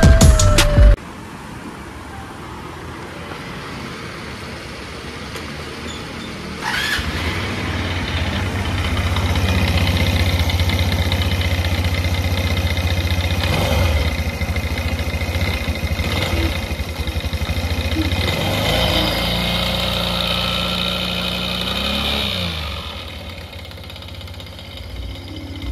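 Suzuki Address 125Z scooter engine running with a loud abnormal noise. It picks up sharply about seven seconds in, then rises and falls before easing off near the end. The mechanic traces the noise to a worn bushing, even though the sliding surfaces look fine.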